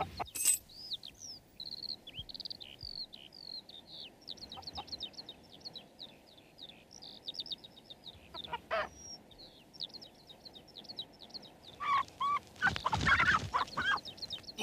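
Quick high bird chirps and twitters throughout, with a louder burst of hen clucking near the end.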